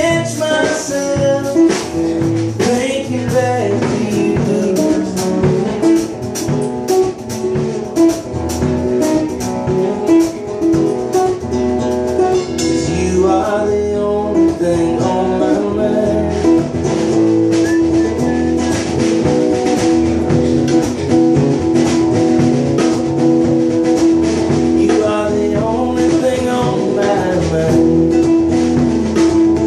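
Live acoustic guitar and drum kit playing a song together, the guitar carrying the chords while the drums keep a steady beat.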